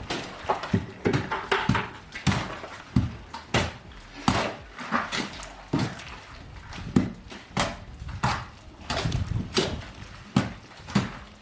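A run of irregular knocks and clatters, several a second, some sharp and some duller.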